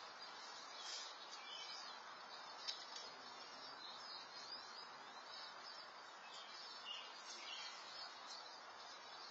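Faint birdsong through a security camera's microphone: scattered short chirps from small birds over a steady hiss, with one sharp click about two and a half seconds in.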